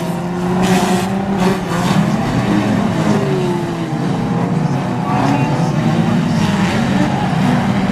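Several banger racing stock car engines running and revving on the track, their pitch rising and falling. There are a few short knocks in the first two seconds as the cars make contact.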